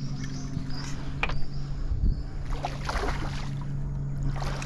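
Steady hum of the boat's motor, with a fish splashing at the surface as it is played in beside the boat, once a couple of seconds in and again near the end.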